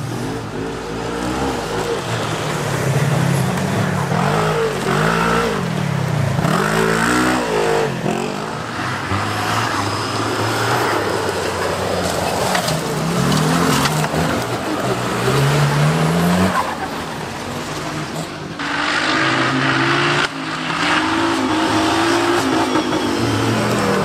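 4x4 off-road vehicle engine revving hard, its pitch rising and falling again and again.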